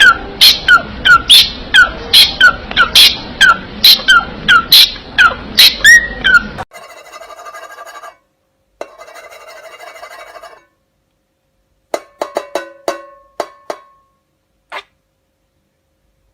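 A bird calling loudly over and over, about three sharp falling chirps a second, which cuts off abruptly after about six and a half seconds. Then comes a fainter buzzy steady sound twice, followed by a run of clicks.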